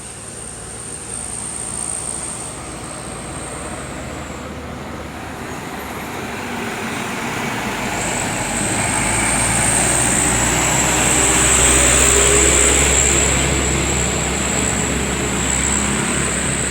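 A large bus's engine and road noise, growing louder as it approaches to a peak about two-thirds of the way in, then easing slightly. A steady high-pitched whine sits over it and drops out for a few seconds early on.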